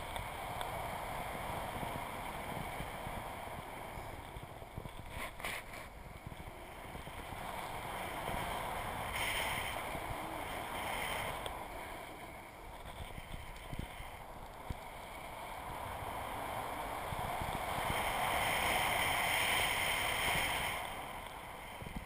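Wind rushing and buffeting over a GoPro's housing in the airflow of a paraglider in flight, swelling and easing, loudest a little before the end.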